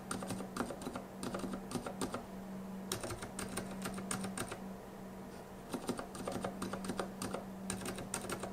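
Aliaz 70 g silent tactile mechanical keyboard switch in a switch tester, pressed and released over and over in quick runs of soft clicks with short pauses between runs. A faint steady hum sits underneath.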